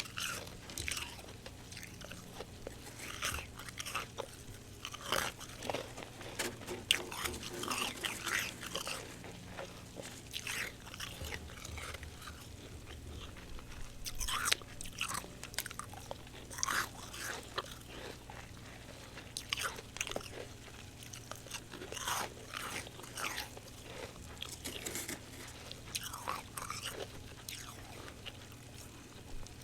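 Close-miked biting and chewing of crunchy humidifier frost: irregular crisp crunches every second or so, over a faint steady low hum.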